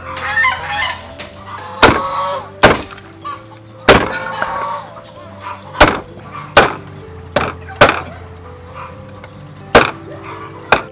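Meat cleaver chopping raw duck on a thick wooden chopping block: about nine sharp, irregularly spaced chops. Background music with held notes underneath.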